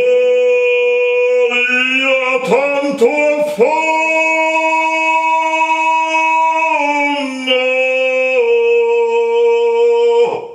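A man singing unaccompanied in full operatic voice: a few short notes with quick upward scoops, then a long held note, stepping down twice to a lower sustained note that cuts off near the end.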